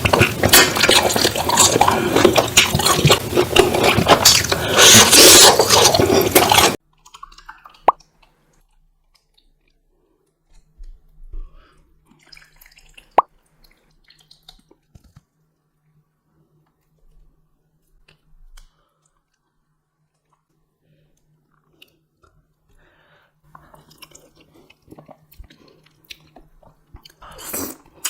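Close-miked mukbang eating sounds. A loud, dense noise cuts off abruptly about seven seconds in, followed by quiet, scattered wet chewing and mouth clicks.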